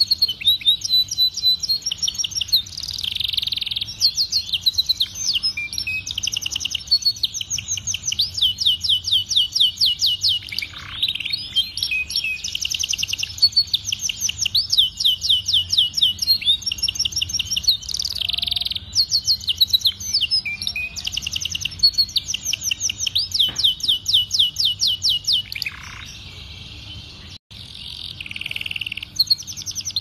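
Domestic canary singing continuously: long, fast trills and rolls of rapidly repeated high notes, phrase after phrase, with a short break near the end before the song picks up again.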